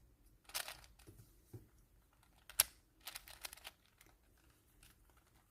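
Plastic 4x4 Rubik's cube being turned by hand: a few short clicking, scraping turns of its layers, with one sharp click about two and a half seconds in.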